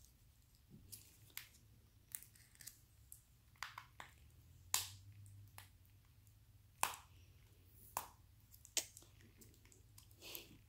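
A small cardboard box wrapped in brown packing tape being picked and cut at with a hobby knife: faint, scattered crackles and sharp clicks of tape and cardboard at irregular intervals, the loudest about halfway through.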